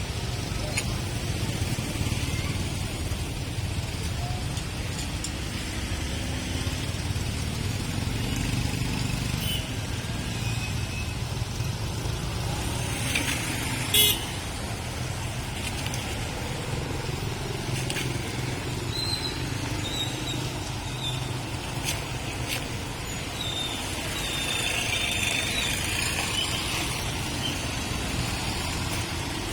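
Busy street traffic: motorbikes and cars running past in a steady stream, with short horn toots. A single sharp knock stands out about halfway through.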